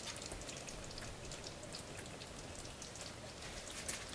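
Faint sizzling with many small crackles and pops, from a hot pan of tomato and beef-mince sauce.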